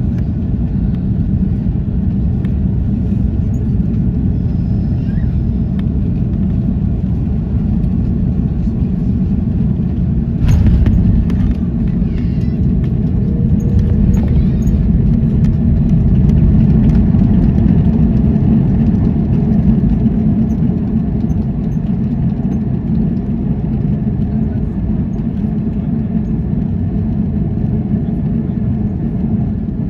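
Steady low rumble of an airliner cabin during landing, with a sudden thump about ten seconds in, then the rumble swelling for several seconds before settling again.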